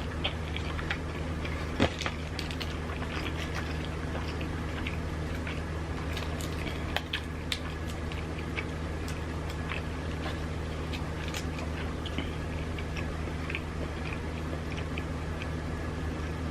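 Close-miked chewing of sushi rolls: many small wet mouth clicks and squelches over a steady low hum. One sharper click comes about two seconds in.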